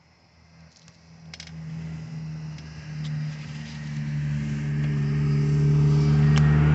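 An engine's steady hum drawing closer, growing from faint to loud. A few light clicks sound about a second in.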